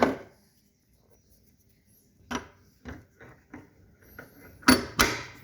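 Metal hand tools clinking as a ratchet, extension bar and socket are handled and fitted together: a few light clicks and clinks, then two louder clacks near the end.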